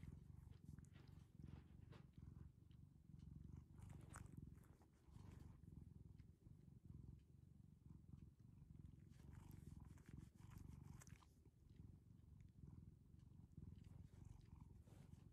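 Ginger tabby cat purring quietly and steadily as it is stroked on a lap.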